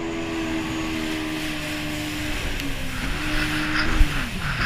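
Yamaha jet ski engine running under throttle over rushing water and wind; its pitch holds steady, drops off and comes back up about two-thirds through, and dips again near the end. A single thump comes about four seconds in.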